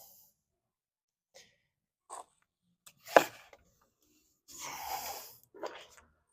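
Intermittent small clicks and knocks of hand work on the car's gear-linkage rods, the loudest a single sharp knock about three seconds in. About five seconds in comes a longer noisy rush like a heavy breath.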